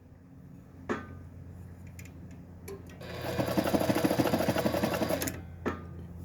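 Dressmaker zigzag sewing machine running briefly while sewing a zigzag stitch, a fast, even needle clatter lasting about two seconds from about three seconds in. Sharp clicks come about a second in and again just after the stitching stops.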